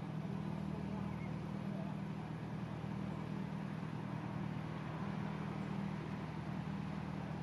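Narrowboat's engine running steadily while the boat cruises, a continuous low hum with no change in pitch or level.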